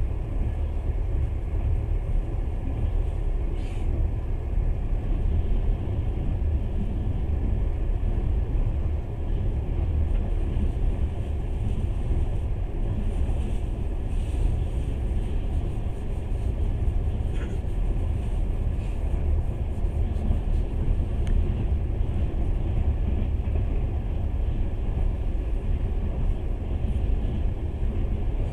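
Train running at speed, heard from inside the carriage as a steady low rumble.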